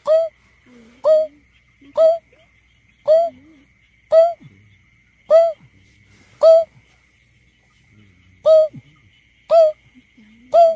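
Greater painted-snipe calling: a loud series of short hooting notes, each sliding down in pitch, about one a second with a brief pause past the middle. It is played as a lure call for bird surveys.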